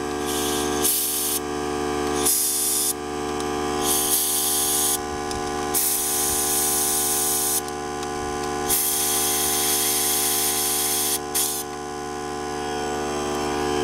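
Compressed-air blow gun hissing in about six blasts, some short and some about two seconds long, blowing leftover brake dust and corrosion out of a motorcycle's floating front brake rotor bobbins. A steady hum runs underneath.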